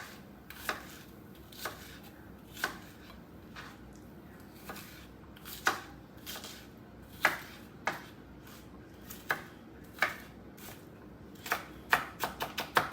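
Knife chopping seasoning vegetables: single sharp chops spaced about a second apart, then a quick run of chops near the end.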